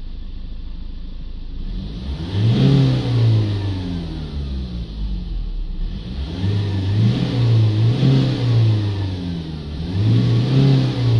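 2018 Ford Ranger's 2.2-litre four-cylinder diesel engine, heard from the cab, revved three times from idle, each rev rising and falling back over a couple of seconds.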